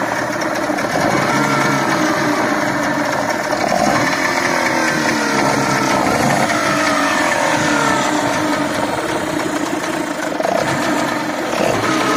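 Small outboard motor running on a test run after servicing, its lower unit in a drum of water; it runs smoothly, with its speed rising and falling a little.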